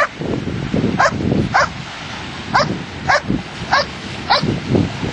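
A dog yelping over and over in short, high-pitched cries that each drop sharply in pitch, about seven of them, over the steady rush of surf.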